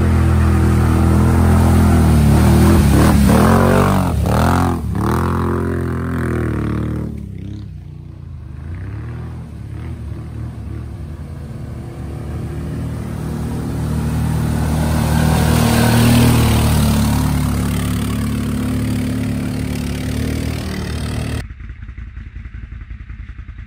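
A motor vehicle's engine revving hard, its pitch swooping up and down several times in the first few seconds, then running lower and steadier before swelling again. Near the end the sound drops off sharply to a much quieter level.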